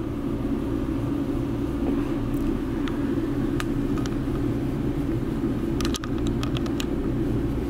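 Grey kitten purring with a steady low rumble while being stroked on the head, a sign she is relaxing under the touch. A few short clicks, most of them about six to seven seconds in.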